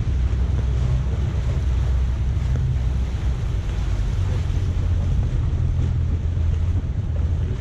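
Wind rushing over the microphone on a small boat running under outboard power, mixed with the steady drone of the outboard motor and the wash of water along the hull.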